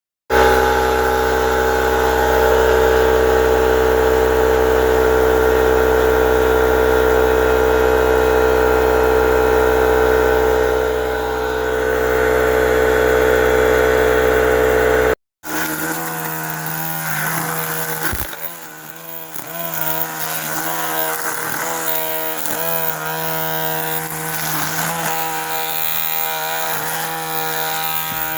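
Electric air compressor running steadily with a loud, even hum. After a sudden break about halfway, a different running machine sound follows whose pitch wavers up and down.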